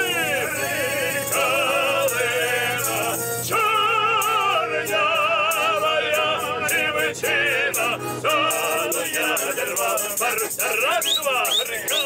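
Several Cossack choir singers' voices singing together with strong vibrato, accompanied by a bayan (Russian button accordion).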